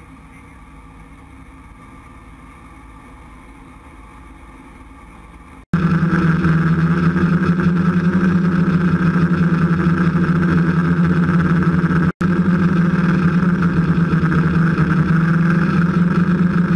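The diesel engines of a 45-foot Coast Guard Response Boat-Medium running under way. First a steady, fairly quiet hum inside the wheelhouse, then after about five seconds an abrupt change to a much louder steady engine drone of the boat at speed, broken once by a momentary gap.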